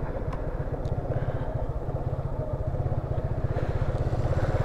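Motorcycle engine running steadily under way, a fast even pulsing of the exhaust, growing a little louder near the end.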